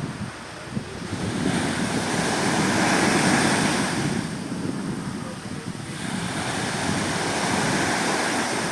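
Sea waves breaking and washing in, swelling and easing twice over a few seconds, with wind buffeting the microphone.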